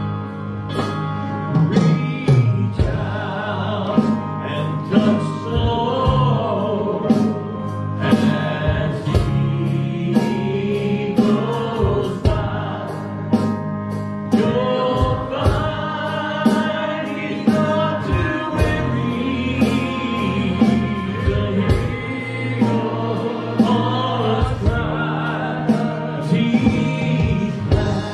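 Live gospel music: a small group of men singing in harmony, backed by an electric keyboard, bass guitar and a drum kit keeping a steady beat.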